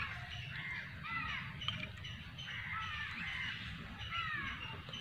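Crows cawing: several caws in three short bouts, about a second and a half apart.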